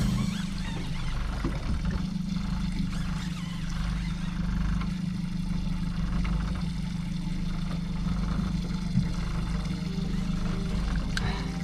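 Small fishing boat's engine idling with a steady low hum.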